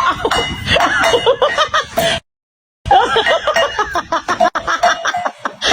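People laughing and voices, cut off by a brief total silence about two seconds in, then laughter and voices again.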